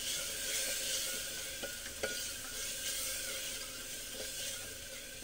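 Onion and spice masala sizzling in an open aluminium pressure cooker as a spoon stirs it, with a few light scrapes of the spoon against the pot. The paste is frying with a little water added to keep the spices from burning.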